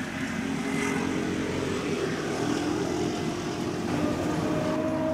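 Steady engine drone, a hum of several pitched tones over a noisy rumble, with a higher tone coming in near the end and rising slightly.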